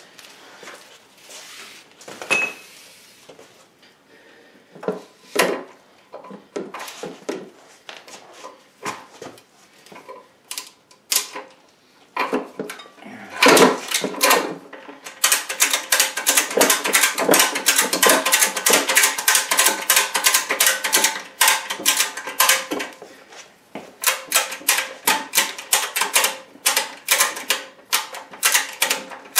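Ratchet tie-down strap being cranked, giving long runs of rapid clicks from about halfway in as it tightens and hoists a heavy lathe drive unit. Before that come scattered knocks of metal parts being handled.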